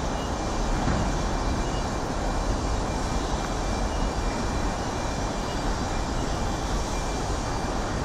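Steady city background noise: a broad rumble of distant traffic, with wind buffeting the phone's microphone.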